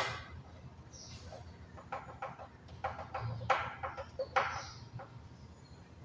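Irregular plastic clicks and knocks from handling the blower motor and refitting its clamp in a split AC indoor unit's plastic housing: a sharp click at the start, then a cluster of clicks between about two and four and a half seconds in.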